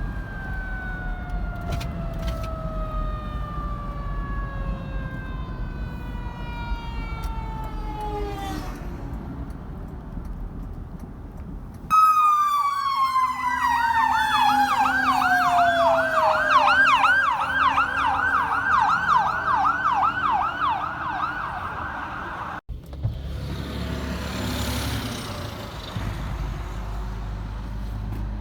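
Emergency vehicle sirens on a highway. First a siren whose pitch falls slowly over about nine seconds. Then, after a sudden change about 12 s in, a louder fast yelp that warbles about three times a second over a falling wail. Near the end it gives way to traffic noise with a vehicle passing.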